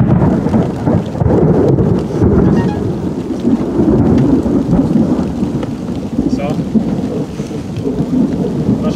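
Continuous rolling thunder from an overhead thunderstorm with very frequent lightning, a loud, deep rumble that never breaks off.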